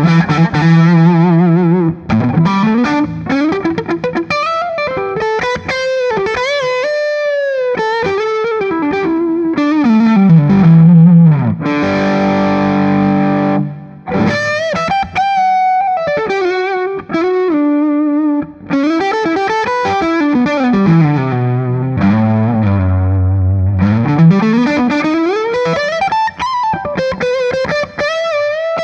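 Gibson Les Paul Special Double Cut electric guitar on its neck P-90 pickup, played through a Soldano Astro 20 amp at an edge-of-breakup drive with a touch of reverb. It plays single-note lead lines with string bends and vibrato, with a ringing chord about twelve seconds in.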